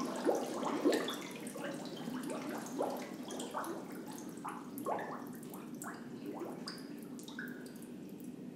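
Air bubbles gurgling and popping up through the water of a hydrostatic weighing tank as a man breathes out fully while submerged: many short bubbling blips, dense at first and thinning out toward the end.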